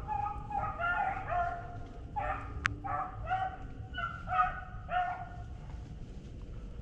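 Beagles baying in a string of short barks, the sound of hounds running a rabbit's trail. The barking stops about five seconds in.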